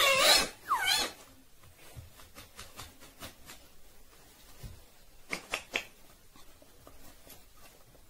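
Rose-ringed parakeet giving loud calls that slide up and down in pitch in the first second. Then come quieter scattered clicks and ticks as it climbs the stainless-steel wire cage, gripping the bars, with three sharper clicks in quick succession a little past halfway.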